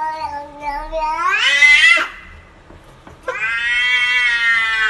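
A tabby-and-white cat meowing in long, drawn-out, almost word-like calls, an 'oh' and a 'why'. The first rises in pitch and breaks off about two seconds in. The second, long and held steady, starts a bit over a second later.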